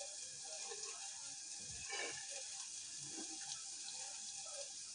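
Cooking water from pressure-cooked black chickpeas draining through a steel strainer into a bowl: a faint trickling and dripping.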